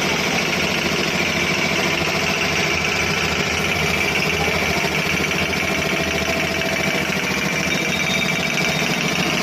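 Air compressor running steadily, its motor and pump making a dense, fast, even pulsing.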